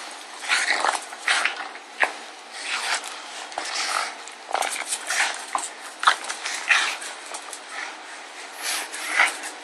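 A pug growling in short, irregular bursts as it bites and tugs at a sneaker in rough play, with a few sharp knocks mixed in.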